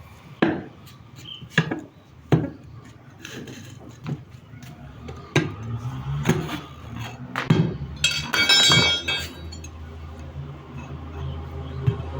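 Hard objects clinking and knocking, about six separate strikes, then a short ringing metallic clatter about eight seconds in, over a low steady hum.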